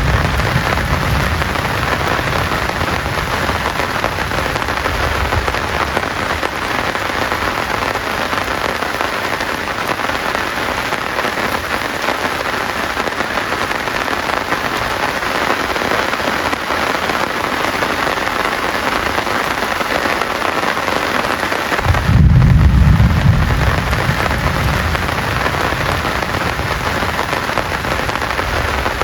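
Heavy rain falling steadily in a dense, even patter. A low rumble of thunder fades out in the first few seconds, and a second rumble breaks in suddenly about 22 seconds in and rolls on for several seconds.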